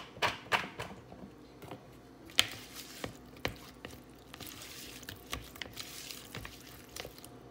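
Silicone spatula stirring raw shrimp in a wet spice marinade in a plastic bowl: irregular wet squishes and scrapes, with a few sharper knocks, the loudest about two and a half seconds in.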